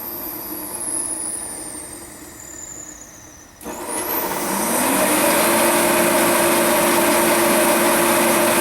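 Sears forced-air torpedo heater's blower motor and fan winding down, the whine falling in pitch and fading. About three and a half seconds in, the heater starts again: the motor spins up with a rising whine and settles into a steady loud run.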